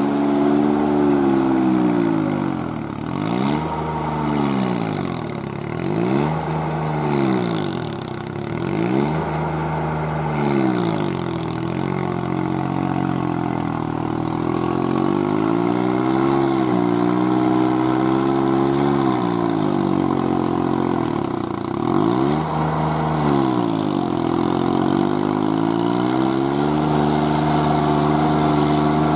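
VST Shakti MT 224-1D mini tractor's three-cylinder diesel engine running under load while pulling a rotavator through wet mud. Its pitch dips sharply and recovers about four times in the first ten seconds and twice more later, then runs steadier near the end.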